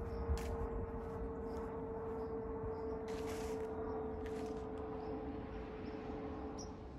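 Distant jet airliner overhead: a low rumble with a steady whining tone that drifts slightly lower and fades near the end. A brief hissing rustle comes about three seconds in.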